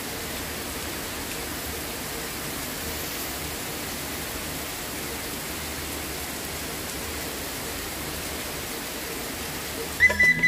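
Heavy rain falling steadily, an even hiss with no breaks. Right at the end a flute melody cuts in.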